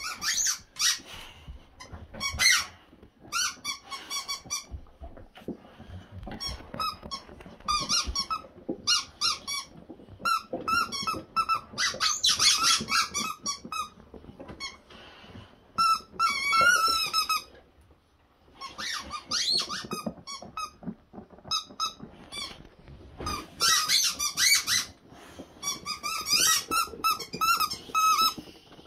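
Rubber squeaky dog toys, among them a rubber chicken, squeaking over and over as two boxer dogs chew them, in irregular runs of short, high squeaks with brief pauses between.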